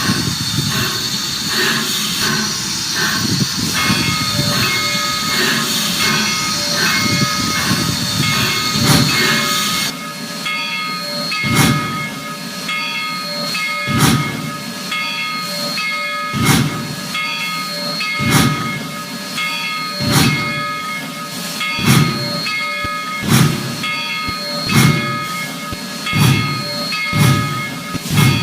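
Steam locomotive starting away. A loud hiss of steam comes first, then separate exhaust chuffs from about ten seconds in, closer together as it gathers speed, with steady high tones running over the top.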